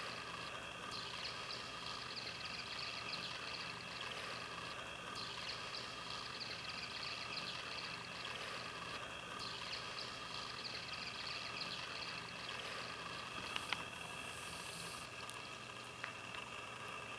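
Tiny kitten suckling milk formula from a feeding bottle: faint, rapid wet sucking clicks that pause briefly a few times, over a steady background hum, with two small clicks near the end.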